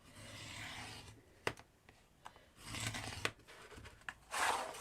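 Craft material for a miniature garage door being cut by hand: three rasping cutting or tearing strokes, the last the loudest, with a few sharp clicks between them.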